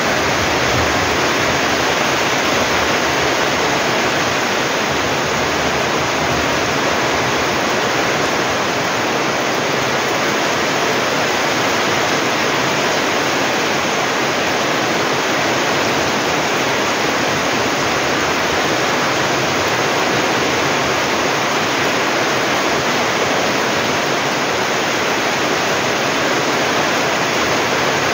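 Heavy rain pouring down steadily, a loud, even hiss with no breaks.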